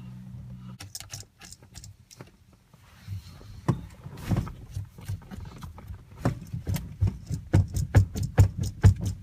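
A 2003 Volvo S40's steering wheel being rocked back and forth to free it from the splined steering column: its hub is stuck on the column, held only by a loosened retaining nut. Scattered clunks and clicks give way, from about two-thirds of the way in, to a steady rattling knock at about three a second that grows louder.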